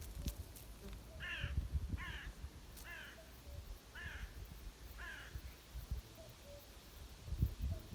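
A bird giving five harsh, crow-like caws about a second apart, over irregular low rumbles and thumps.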